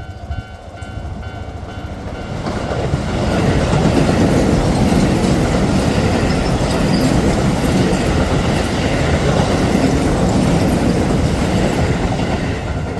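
A Keio Line train passing over a level crossing. It builds up about two and a half seconds in, runs loud from about four seconds and eases off near the end. Before it arrives, the crossing's warning bell is heard ringing, and the train then drowns it out.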